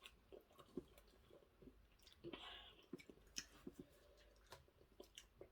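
Faint chewing and small mouth clicks of someone eating soup, with a brief soft rustle about two and a half seconds in.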